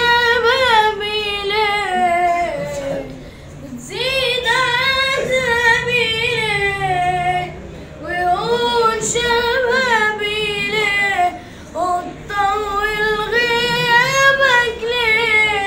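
A boy singing alone without accompaniment: long ornamented phrases with wavering, gliding held notes, broken three times by short pauses for breath.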